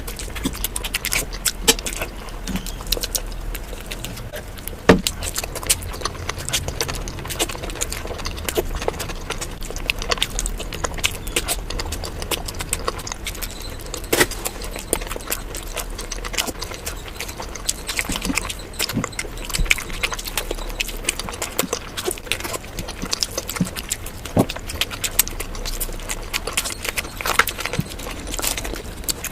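Close-miked eating sounds: chewing and crunching food, a dense, irregular run of small clicks and crackles over a low steady hum.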